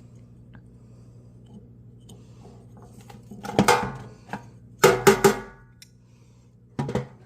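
Several sharp metallic knocks and clatters from a sand-casting flask being opened and handled: one about three and a half seconds in, a quick run of three around five seconds, and one more near the end, over a steady low hum.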